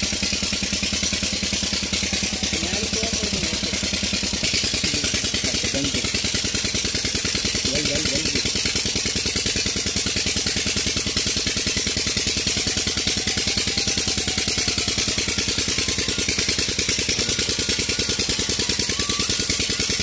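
Old Petter diesel engine running steadily with a fast, even beat.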